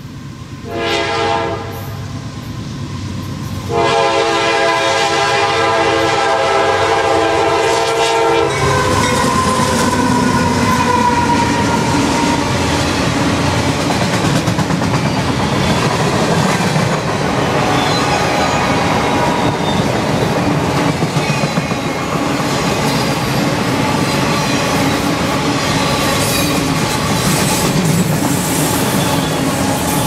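A CSX freight train's locomotive horn sounds a short blast and then a long blast, a chord of several steady notes. The horn cuts off as the train reaches the spot, about eight seconds in. The rest is the loud rumble and clatter of the autorack cars rolling close by, wheels clacking over the rail joints, with faint wheel squeal.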